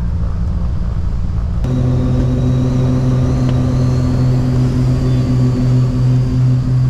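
Light aircraft's piston engine heard inside the cabin: a steady low drone that suddenly grows louder and fuller a couple of seconds in, with a regular pulsing beat, as power is brought up for the takeoff roll.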